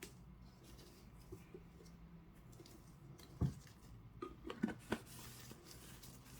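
Light handling noises over a low steady hum: a single knock about three and a half seconds in, then a quick cluster of small clicks and taps about a second later.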